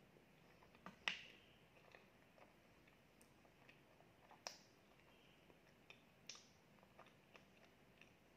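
Mouth sounds of chewing soft honey cream cheese cake close to the microphone: a few sparse, sharp wet lip smacks and clicks, the loudest about a second in.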